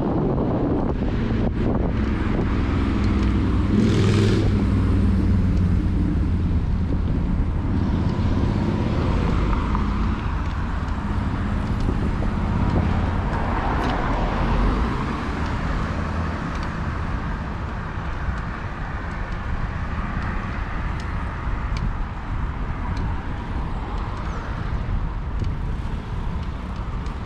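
Road traffic passing on a city street, over a steady low rumble. A louder vehicle engine passes a few seconds in.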